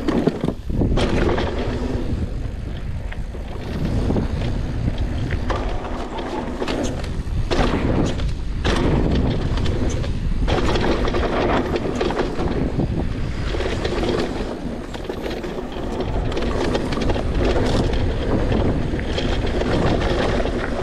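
Intense electric mountain bike rolling fast down a dirt singletrack: the tyres rumble over the dirt and the bike rattles and knocks over bumps, a steady rumble with many small knocks.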